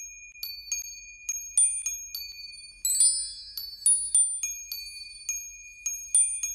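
Music of high, bell-like struck notes, in a quick run of about three a second, each note ringing on.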